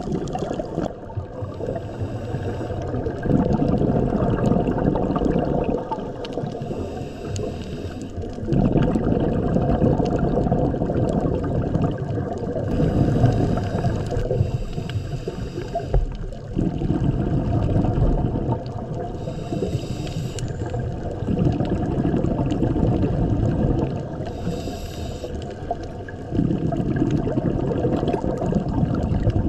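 Scuba diver breathing through a regulator, recorded underwater: a short hiss on each inhale, then a long rumble of exhaled bubbles, about five breaths in all at roughly five- to six-second intervals.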